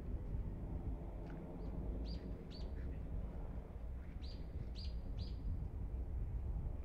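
Birds chirping: short high calls in two clusters, a few about two seconds in and three more a couple of seconds later, over a steady low rumble.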